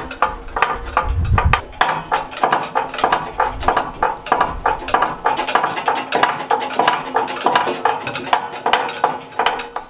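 Quick, irregular metallic clicking and squeaking, several clicks a second, as oil is worked into the small wheels and moving parts of a Norwood sawmill.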